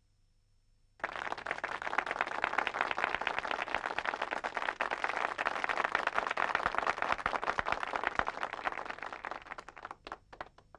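Audience applauding. The applause starts suddenly about a second in, holds steady, then dies away to a few scattered claps near the end.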